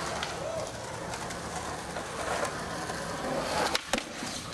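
Skateboard wheels rolling over concrete, a steady rumble, with a sharp clack of the board about four seconds in.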